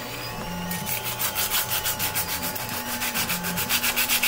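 Sanding sponge rubbed back and forth in quick, even strokes along the edge of a 3D-printed plastic sheath piece, starting about a second in, to take off a sharp edge.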